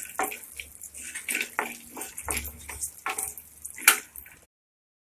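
Peanuts and curry leaves sizzling in hot oil in a steel kadai, with a spatula scraping and clinking against the pan in repeated strokes. The loudest clink comes just before four seconds in, and the sound cuts off suddenly near the end.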